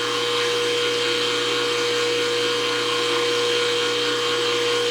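Axis drive motor of a CNC-retrofitted knee mill running slowly and steadily during its homing cycle, a constant whine that does not change.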